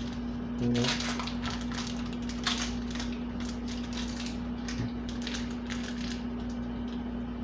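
Crinkling and crackling of plastic food packaging handled by hand, in short irregular bursts that are loudest about a second in and again around two and a half seconds. A steady appliance hum runs underneath.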